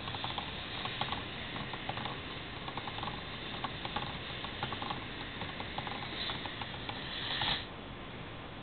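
Lego pneumatic V-twin engine running on compressed air: rapid light plastic clicking of its pistons and valves over a hiss. The hiss swells briefly near the end, then the sound drops.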